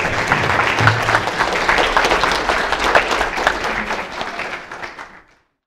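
Audience applauding at the end of a talk, many hands clapping together, fading out about five seconds in.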